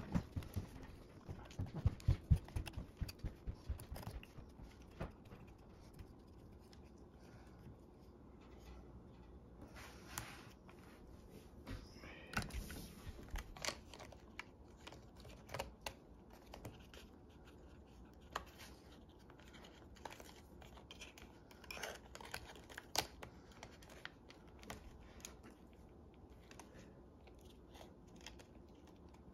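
A plastic spudger and fingers working at the opened Lenovo x240 laptop's internal parts and chassis: scattered small clicks, taps and scrapes. A quick run of soft knocks comes in the first few seconds, then single clicks every second or two.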